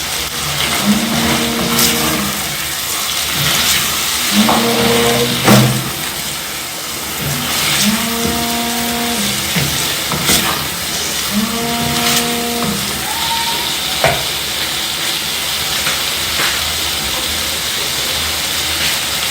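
Liver frying in a pan with a steady sizzle, with a few sharp knocks like a spoon against the pan as it is stirred. A low held tone of unknown source sounds four times, each for about a second.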